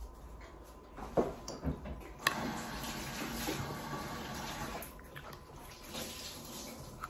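Kitchen tap running into a sink for about two and a half seconds, starting a little after two seconds in and stopping near the five-second mark, with a few light knocks before it.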